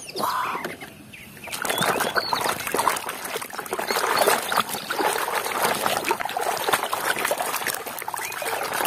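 Muddy water sloshing and splashing in a plastic tub as a plastic toy truck is scrubbed and swished through it by hand. It starts about a second and a half in, with small knocks of plastic against plastic.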